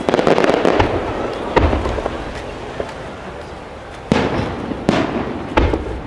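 Aerial firework shells bursting in sharp bangs, about five of them, each fading away in a long rumbling echo, with small crackling pops in between.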